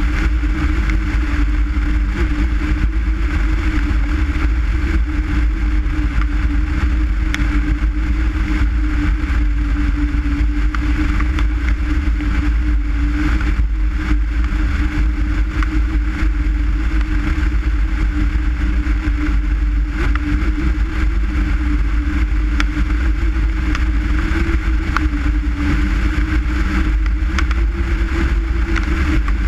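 Skoda Forman car's engine and road noise while driving, a steady drone that holds at an even pitch.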